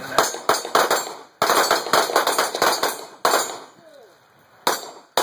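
Pistol shots from several shooters firing at once, a fast ragged string of cracks over about three seconds, then two last single shots near the end.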